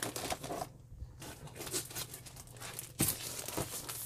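Plastic packaging of a cross-stitch kit crinkling as it is handled and set down on a table, in several bursts with a short pause about a second in.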